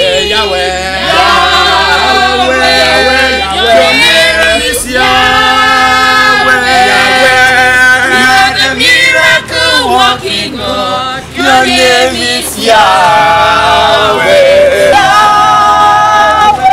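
A group of men and women singing together, phrase after phrase, with brief pauses between phrases.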